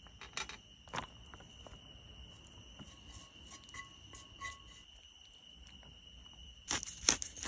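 Crickets chirping in a steady high trill, with scattered sharp clicks and a louder cluster of clicks and knocks near the end.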